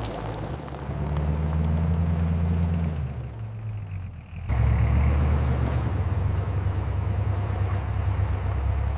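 Low, steady vehicle engine rumble. It sags for a moment and comes back abruptly about four and a half seconds in.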